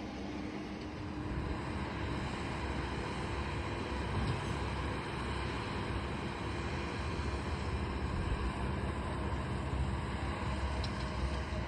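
Tractor engine running steadily in the hayfield, a continuous drone with no sharp events.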